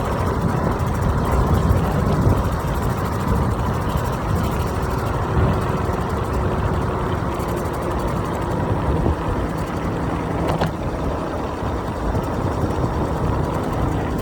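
Steady rumble of wind and road noise while riding an iENYRID M4 Pro S+ electric scooter, heaviest in the low end, with a faint steady whine.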